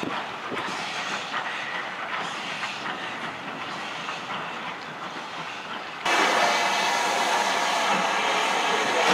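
Steam locomotive moving slowly tender-first, its wheels clicking over rail joints while steam hisses from around its cylinders. About six seconds in, the sound cuts abruptly to a louder, steady hiss of steam from a Stanier 8F locomotive close by.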